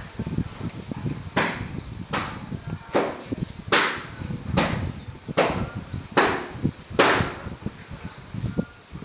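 A series of sharp knocks, about one every 0.8 seconds, eight in all, over a low rumbling noise, with a few faint short high chirps.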